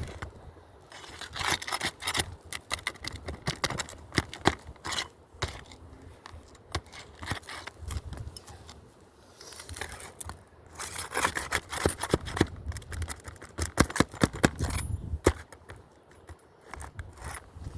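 Metal roofing pry tools scraping and working under asphalt shingles to break them loose: repeated scrapes, sharp clicks and taps coming in bouts with short pauses.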